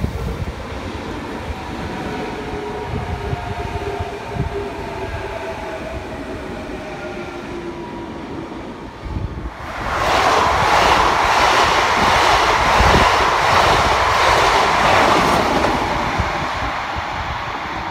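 A double-deck suburban electric train passing close by, its motors making a whine that falls slowly in pitch. About ten seconds in, this gives way suddenly to the louder rushing, rattling wheel and rail noise of a locomotive-hauled passenger train passing and running away, fading slowly.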